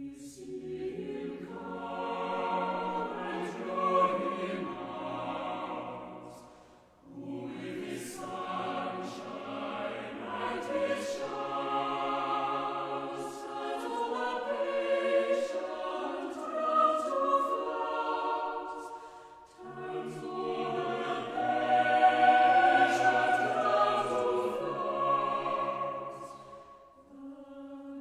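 Background music of a choir singing slow, sustained phrases, with two short pauses between phrases.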